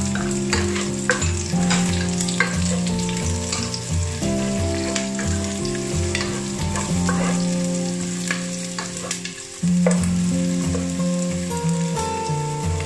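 Diced onion and garlic sizzling in hot canola oil in a nonstick pot, with sharp crackles of spitting oil, stirred and scraped with a plastic spatula. Low held notes of background music run underneath, changing every second or so.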